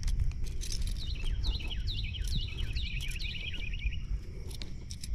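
Birdsong: a rapid run of short, downward-sweeping chirps for a few seconds, over a steady low rumble with a few light clicks.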